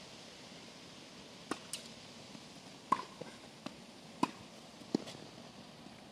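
Tennis rally: a string of sharp knocks as the ball is struck by rackets and bounces on the court, about seven in all, the loudest about three and four seconds in.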